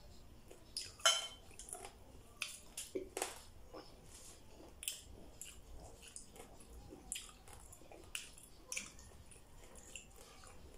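A man eating with his bare hands from a plate: small irregular clicks and taps of fingers and food against the plate, with chewing. The sharpest click comes about a second in.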